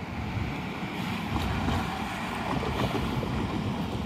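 A car driving close by at a road intersection, its engine and tyre noise swelling as it nears, mixed with wind buffeting the microphone.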